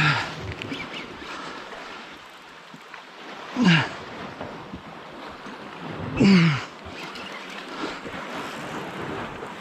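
Sea surf and wind on the microphone, with three loud short squeals a few seconds apart, each falling sharply in pitch.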